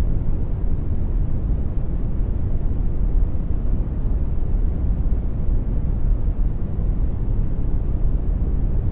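Synthetic brown noise: a steady, deep rumbling hiss, heaviest in the bass, that holds unchanged.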